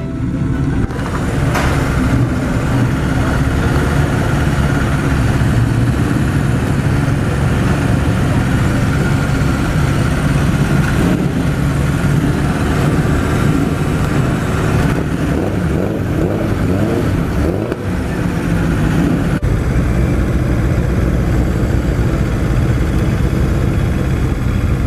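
Motorcycle engine running close up as the bike is ridden, heard from a camera mounted on the bike. The engine note eases off about twenty seconds in as the bike pulls up.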